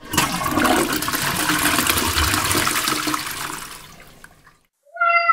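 Rushing water that runs for about four seconds and fades out. Near the end a short pitched call begins.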